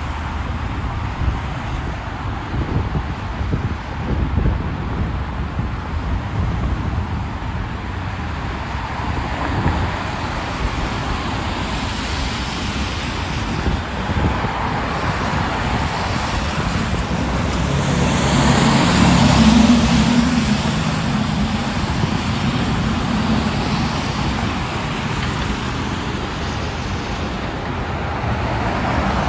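Steady highway traffic: cars and trucks passing in a continuous rush of tyre and engine noise. One vehicle with a low engine hum passes loudest about two-thirds of the way through.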